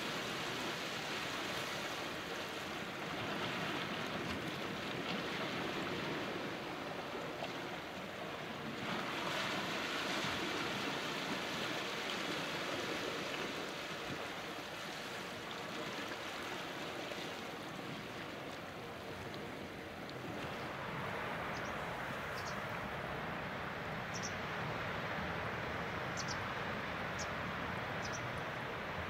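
Small sea waves washing in over rock ledges and a shingle beach, the surf swelling and easing every several seconds. About twenty seconds in it gives way to a steadier, even hiss, with a few brief high ticks.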